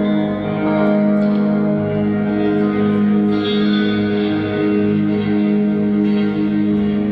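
Guitar played with effects, holding sustained, ringing notes with echo and reverb, as a band's sound check.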